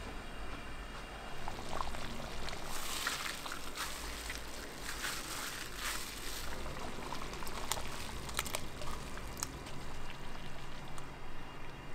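Liquid being poured into a cooking pot: a splashing pour from about three seconds in to about six and a half, with scattered clicks around it.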